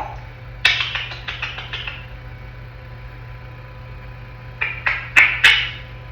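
Young African grey parrot making sharp clicking and rattling noises in two bursts, one about a second in and a shorter one near the end.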